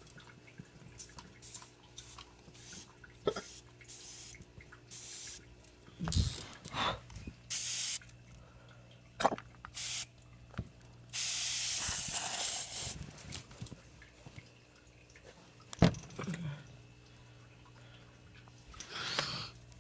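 Small fire in a tin can with water in it, hissing and spitting in irregular bursts with scattered clicks; the longest hiss lasts about two seconds near the middle.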